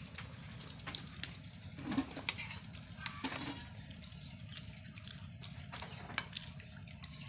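Eating sounds: scattered clicks and smacks of chewing and handling food, with a couple of short low vocal sounds about 2 and 3 seconds in, over a steady low hum.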